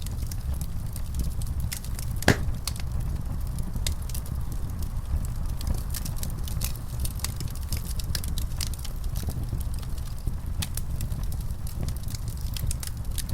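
Wood fire burning in a fireplace, crackling with many small irregular snaps over a steady low rumble, and one louder pop about two seconds in.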